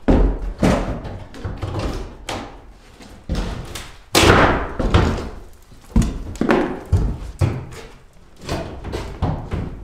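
Sledgehammer blows knocking plywood sheathing off a wooden roof from below. The heavy, irregular thuds and slams come every half second or so, with the loudest about four seconds in.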